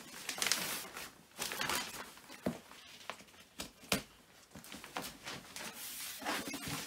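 Plastic wrapping on a new mattress rustling and tearing as it is pulled off, in uneven bursts, with a few sharp knocks.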